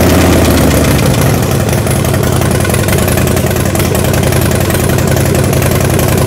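Harley-Davidson Dyna Low Rider S V-twin engine idling steadily just after starting.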